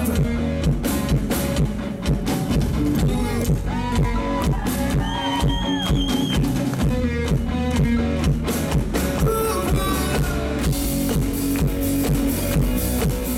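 Loud live concert music played over the stage sound system: an instrumental passage with a steady drum beat and no vocals.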